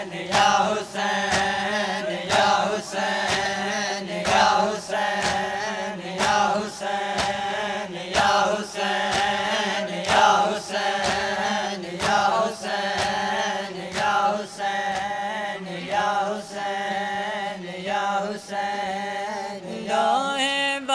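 Matam: a group of mourners beating their chests in unison, sharp slaps roughly every three-quarters of a second, over voices chanting a noha in a wavering drawn-out line.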